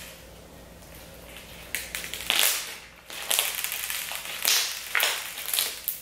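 Slime packed with sugar beads crackling and crunching as it is stretched and squeezed in the hands, in a run of short bursts starting a little under two seconds in.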